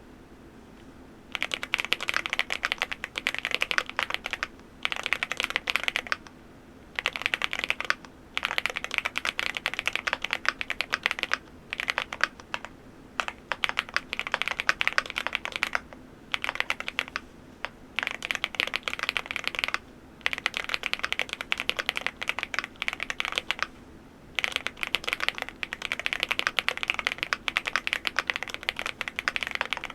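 Typing on an MCHOSE GX87 full-aluminium tenkeyless mechanical keyboard: fast runs of keystrokes starting about a second in, broken by short pauses every few seconds.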